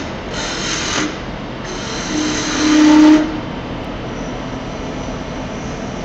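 Gouge cutting a glued-up cherry blank spinning on a wood lathe: two hissing cuts, the second longer and louder with a steady low tone under it. Then the tool is lifted off and only the running lathe is heard, with a faint high whine.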